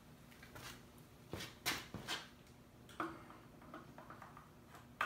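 A few faint, sharp clicks and knocks from objects being handled, about five in all, the loudest a little under two seconds in.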